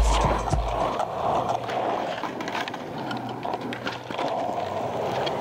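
Skateboard wheels rolling over asphalt, with a few short clacks from the board as a skater pops and lands a trick.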